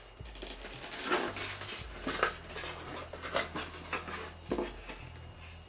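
A plastic Märklin 7286 model-railway turntable being worked loose and lifted out of its styrofoam packaging insert: scattered clicks, knocks and scrapes of plastic against foam.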